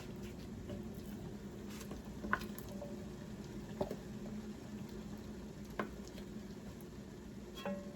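Pots boiling and frying on a stovetop over a steady low hum, with four light clicks and clinks spread through it.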